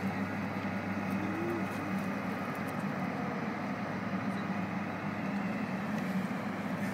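Steady hum of city traffic, an even low rumble with no distinct events.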